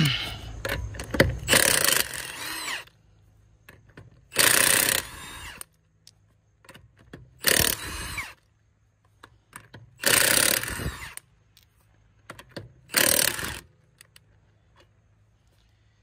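Cordless impact wrench running on a car's lug nuts in five short bursts, roughly three seconds apart, one nut at a time, with small clicks between the bursts.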